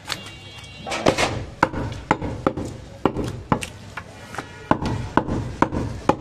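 Butcher's cleaver chopping goat meat and bone on a round wooden chopping block: about a dozen sharp thuds at uneven intervals.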